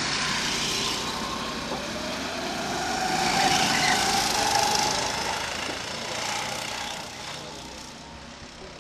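A go-kart engine passing on the track: its buzz grows louder and climbs in pitch as the kart accelerates, then fades as it drives away near the end.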